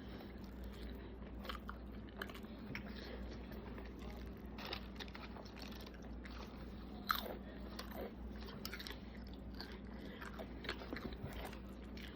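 A person chewing food close to the microphone for a mukbang, with crunchy bites and mouth smacks scattered throughout; the sharpest click comes about seven seconds in.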